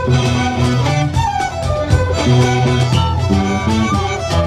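A folk band playing a tune live: fiddles and flutes carry the melody over strummed guitars and hand drums, with a steady beat.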